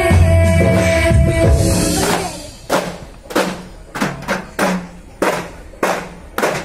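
A song with a heavy bass line plays and fades out about two seconds in. Hand-held daff frame drums are then struck in a loose rhythm, about ten sharp beats.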